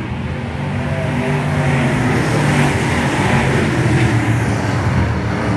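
Thunder Bomber stock car engines running at racing speed, getting louder over the first couple of seconds and then holding steady.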